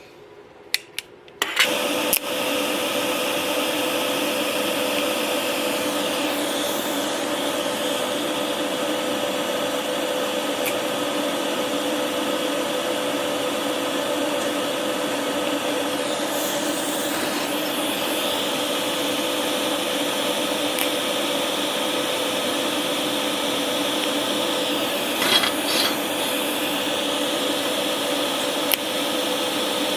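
TIG welding setup running while stainless steel tube is tacked: a few sharp clicks, then a steady hum and hiss with a constant tone that runs on, changing briefly about every ten seconds.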